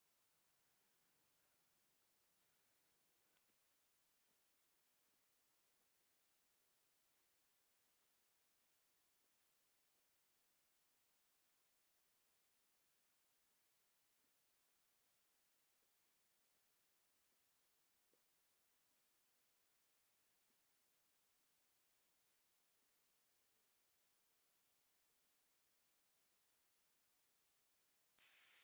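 Steady, high-pitched insect chorus, swelling and easing every second or so.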